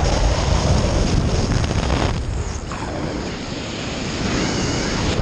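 Wind rushing over a skydiver's helmet-camera microphone, a loud steady rushing that eases a little after about two seconds.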